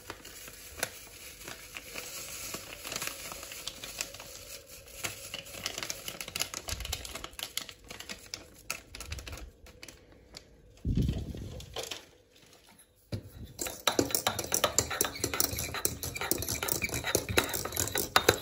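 Paper sachet rustling as chocolate sauce powder is poured into a pot of milk, with a knock about eleven seconds in. Then, in the last few seconds, a wire whisk beats the mixture fast, clattering against the stainless steel pot.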